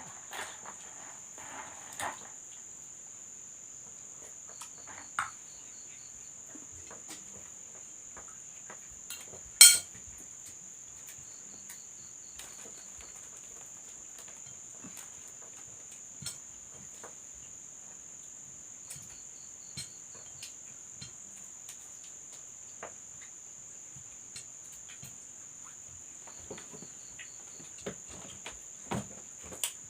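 Crickets trilling in a steady high-pitched drone, with short runs of quicker chirps every several seconds. Scattered light clicks and knocks sound over it, one sharp knock about ten seconds in being the loudest.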